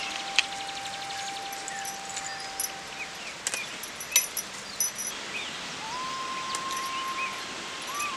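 Outdoor garden ambience with birds chirping in short rising calls, a few sharp clicks and light rustling, under long held flute-like notes of soft background music.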